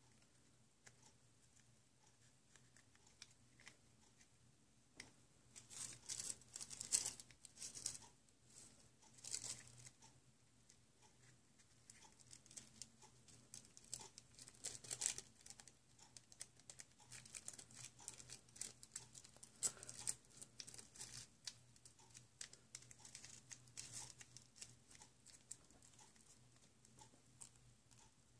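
Faint rustling and crinkling from a hand-held joint rolling machine being worked by hand, its rollers turned and a rolling paper fed in, with small clicks and taps coming in uneven spurts.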